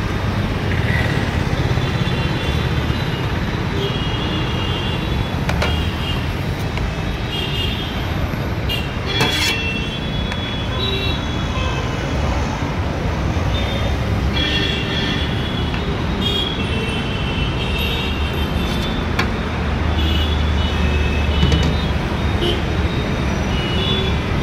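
Steady urban road traffic: a constant low rumble of passing vehicles, with short high-pitched sounds here and there and a few sharp knocks.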